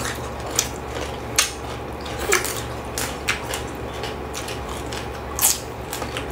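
Eating sounds: crisp bites into raw cucumber and chewing, heard as scattered short sharp clicks and crunches over a steady low hum.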